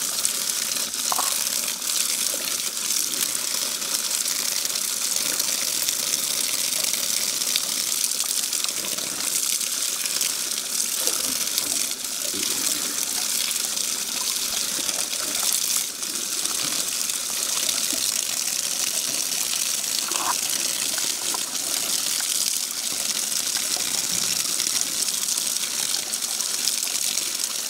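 Steady stream of tap water gushing and splashing onto leafy greens in a bamboo basket as they are rinsed and turned by hand.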